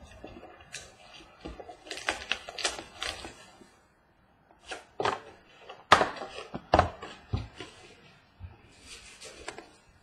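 Small cardboard card boxes handled and set down on a wooden table: a scattering of sharp taps and knocks, the loudest about five to seven seconds in, with stretches of cardboard rustling.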